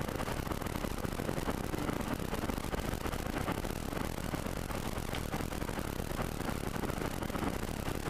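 Steady road and engine noise heard inside a car cruising at about 95 km/h: an even rumble of tyres on asphalt and the engine, with no change in level.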